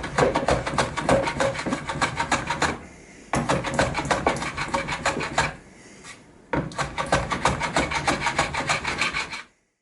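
Hand tool rasping rapidly back and forth on wood, in three runs of quick strokes separated by short pauses.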